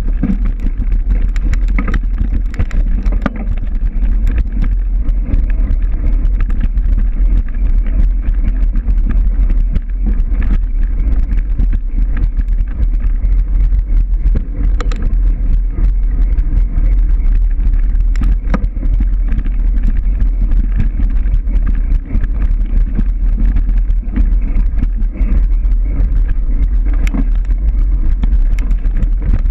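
Loud, steady rumble of wind buffeting the microphone, with scattered knocks and rattles throughout, as from a camera moving fast over rough ground.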